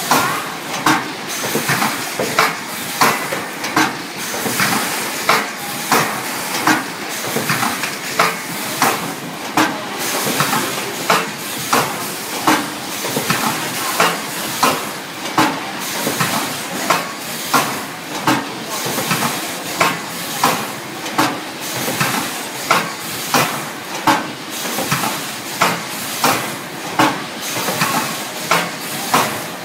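Biscuit ice cream filling and sealing machine running, with a regular sharp clack a little more than once a second over a steady hiss.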